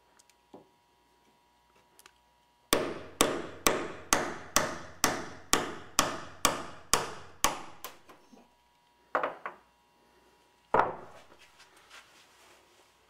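A hammer striking the head of a harpsichord tuning hammer, used as a punch to drive a lead key weight out of a wooden key: about a dozen even blows, roughly two a second, each with a short metallic ring. A few seconds later come two more knocks, the last one single and heavy.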